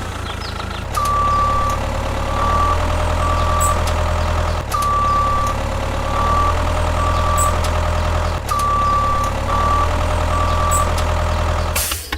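Vehicle reversing alarm beeping in a repeating pattern, one long beep followed by two short ones about every four seconds, over a steady low engine-like hum.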